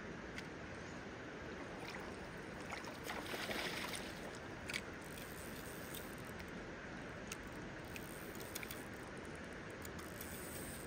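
Shallow river flowing steadily over a gravel and stone bed, an even rushing noise. There is a brief louder patch of water noise about three seconds in, and a few faint clicks.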